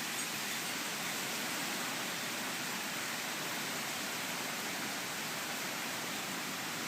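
Hurricane wind and rain, a steady rushing noise that does not let up.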